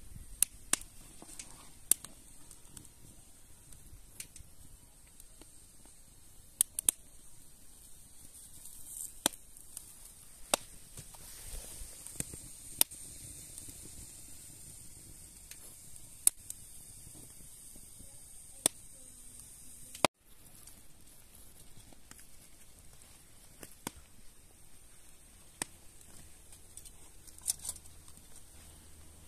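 Irregular sharp clicks and knocks, roughly one every two seconds, over a faint steady high hiss. The sound cuts out for a moment about twenty seconds in.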